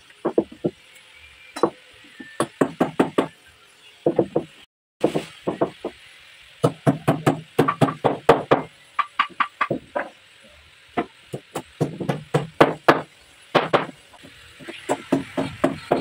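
Hammer knocking on wood in quick runs of light strikes, several a second, with short pauses between runs.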